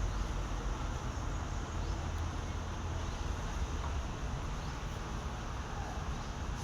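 Steady low background rumble with a faint hiss, no distinct events.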